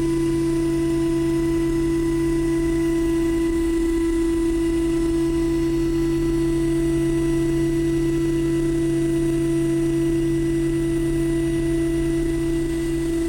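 CNC milling machine spindle running steadily while face-milling aluminium with a PCD insert. It gives a steady pitched hum with one strong tone, picked up through a camera mounted on the machine.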